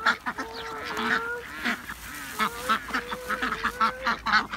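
A flock of domestic ducks and geese calling over one another with many short, repeated quacks and honks, as they crowd in to be fed bread.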